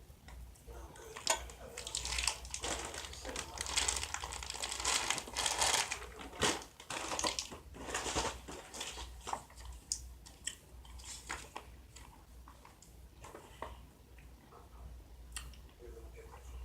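Plastic candy wrapper crinkling and rustling as it is handled and opened, for about nine seconds, followed by scattered small clicks and crunches.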